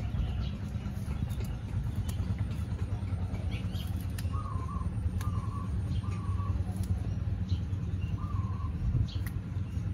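Faint clicks and rustles of leafy vegetable stems being snapped and picked by hand over a steady low rumble. A bird gives four short wavering calls in the middle.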